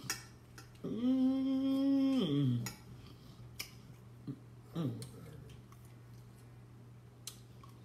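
A woman humming a long, steady "mmm" of enjoyment while eating, then a shorter falling hum a few seconds later. Light clicks of cutlery against a plate.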